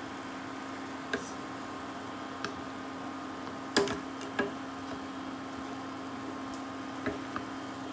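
Wooden spatula stirring hot dog pieces in soy sauce in a stainless steel frying pan, with a few knocks against the pan, the loudest about four seconds in. Under it a steady hum from the running induction cooktop.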